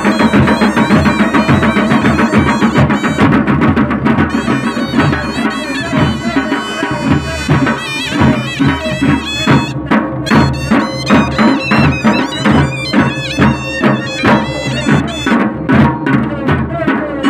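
Traditional folk band of large brass-shelled dhol drums beaten by hand in a steady rhythm, with a wavering piped melody, like a reed wind instrument, above the drums. The drumming is dense at first and settles into evenly spaced beats, about one and a half to two a second, in the second half.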